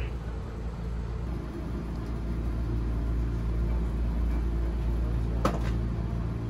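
Steady low rumble and hum of a train heard from inside the carriage, with one sharp click about five and a half seconds in.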